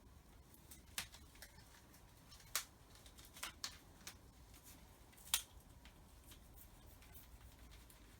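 Plastic packaging around a pressure-washer hose being picked at and cut free with a nail file: a few sharp little clicks and scrapes, a second or two apart, over a faint low hum.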